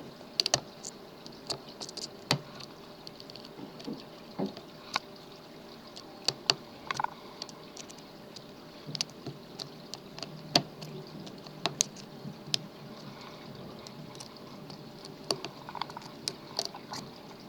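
Scattered small metal clicks and taps of a lock pick and tension wrench working the pins of a pin-tumbler lock, irregular and a few seconds apart at most.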